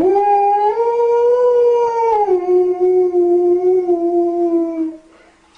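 A husky-type dog's single long howl. The pitch rises a little, steps down about two seconds in, then slides slowly lower until the howl stops near the end.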